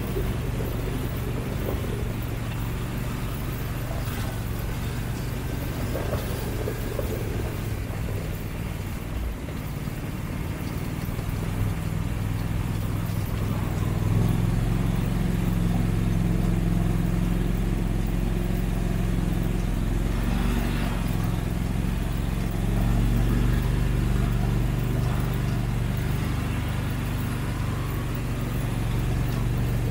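Argo 6x6 amphibious ATV engine running steadily as it drives over rough, muddy ground. The engine gets louder about halfway through and stays that way.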